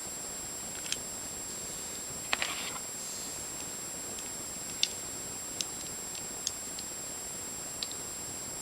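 Plastic pieces of an Eastsheen 4x4 puzzle clicking and tapping together as edge pieces are slid into place by hand: a handful of light, separate clicks, with a short rattling cluster about two and a half seconds in, over a steady hiss.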